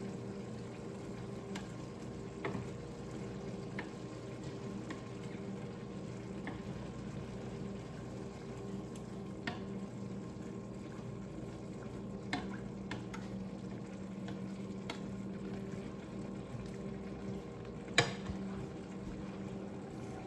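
Ground beef frying in a pan on the stove, with scattered light clicks and one sharper knock near the end from a utensil against the pan. A steady low hum runs underneath.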